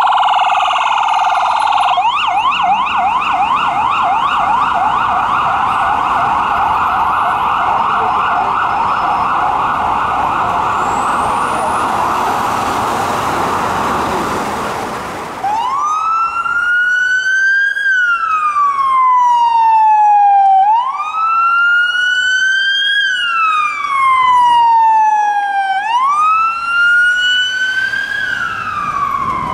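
Electronic emergency-vehicle siren on a fast yelp. After a sudden change about halfway through, it switches to a slow wail that climbs and falls back about every five seconds.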